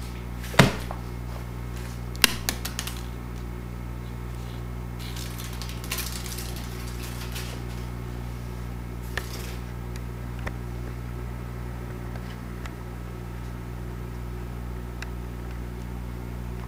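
Steady low electrical hum, with a sharp click about half a second in, a quick run of clicks around two seconds in, and brief rustles around five to seven seconds and nine seconds in.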